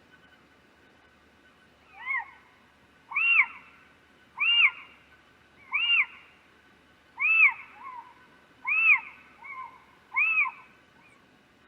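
An owl calling: seven short hoots, each rising and falling in pitch, about a second and a half apart, a couple of them trailed by a softer short note.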